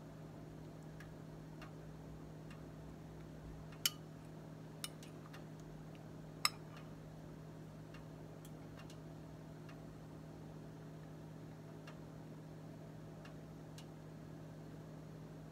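Scattered light ticks and clicks, with three sharper ones about four, five and six and a half seconds in, over a steady low hum.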